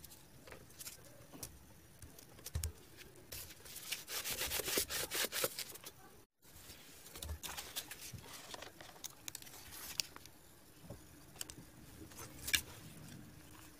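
Cardboard pieces and paper tubes being handled and fitted together: light scattered taps and scrapes, with a busier stretch of rubbing and clicking about four to five seconds in. The sound drops out for a moment just after six seconds, and there is a sharp tap near the end.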